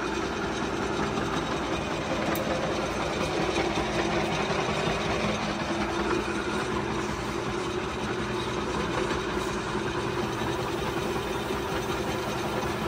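Metal-turning lathe running steadily, its four-jaw chuck spinning a diesel piston, an even mechanical hum with a steady hiss over it. An abrasive pad is held against the spinning piston to scrub off carbon.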